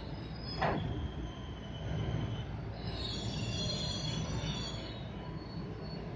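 KRL commuter electric train running, heard from inside the carriage: a steady low rumble with high-pitched wheel squeal that swells in the middle. A short sharp sound comes just under a second in.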